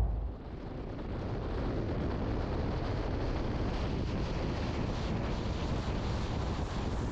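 Steady wind rush on the microphone and road noise from a car driving along a highway. The tail of the intro music dies away in the first half second.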